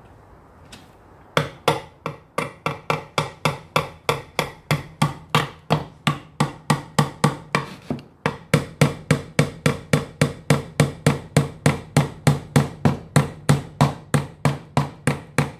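Claw hammer driving a small nail through the side of a wooden box into a wooden divider, a steady run of strikes about three a second that starts about a second and a half in. The nail is being tapped in to start a pilot hole for fixing the divider.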